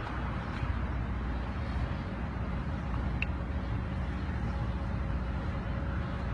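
Steady road traffic noise, a continuous low rumble with no distinct events.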